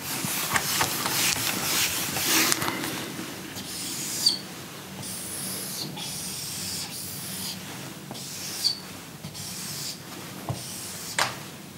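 A whiteboard eraser scrubbing across a whiteboard for the first few seconds, then a dry-erase marker drawing long straight lines on it, stroke by stroke, with a brief squeak of the marker twice.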